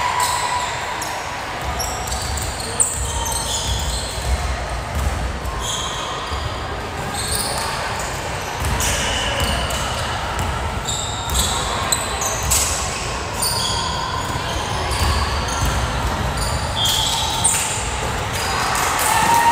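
Echoing gym sound of a volleyball match: sneakers squeaking on the hardwood floor over a hum of voices, with a couple of sharp ball hits.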